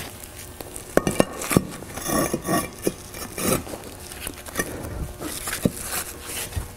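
Concrete retaining-wall cap set down onto the top of a block wall and shifted into position: a few sharp knocks of concrete on concrete with gritty scraping as it slides.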